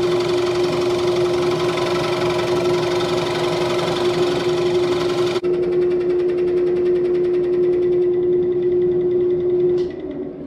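Wood lathe running with a steady motor hum while a turning tool cuts the inside of a dry butternut bowl, the shavings coming off in a dense scraping rush. About halfway the cutting noise drops away abruptly, and near the end the lathe is switched off with a click and starts to wind down.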